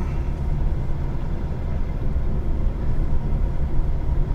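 A car driving along a street: a steady low rumble of engine and tyre noise.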